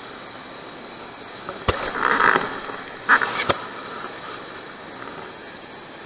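Water splashing close by as a hand reaches into the shallow river to take a hooked fish. There is a sharp knock just before two seconds in and another about three and a half seconds in, all over the steady rush of flowing river water.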